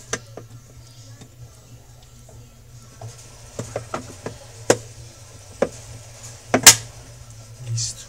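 Sharp plastic clicks and knocks as a plastic cap is pressed and snapped onto the centre of an LG washer's pulsator, the loudest about two-thirds through, over a steady low hum.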